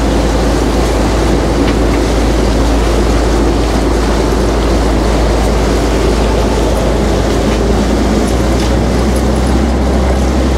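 Fishing boat's engine running steadily under way, with a constant rush of noise over it.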